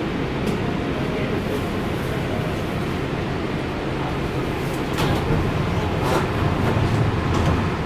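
Kinkisharyo P3010 light rail train running with a steady rumble and a low hum, with a few sharp clicks; it grows louder about five seconds in.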